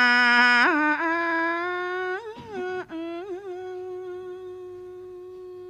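A monk's voice drawing out one long chanted note in a melodic Northern Thai sermon. It steps up in pitch just under a second in, holds the higher note with a couple of brief wavers, and slowly fades.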